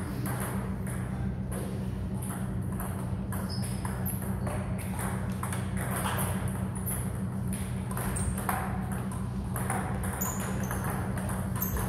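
Table tennis ball in play: quick, sharp clicks of the celluloid ball off bats and table, several a second, over a steady low hum.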